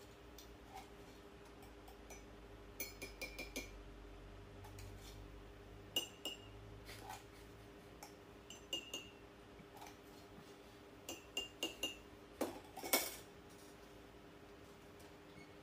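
Cups, glasses and spoons clinking lightly as they are handled on a small table, in short clusters of clinks every few seconds. A steady low hum runs underneath.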